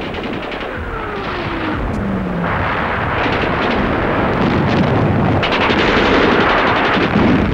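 Bursts of rapid automatic submachine-gun fire over a dense din of battle, growing louder throughout, with a whistle falling in pitch between about one and two and a half seconds in.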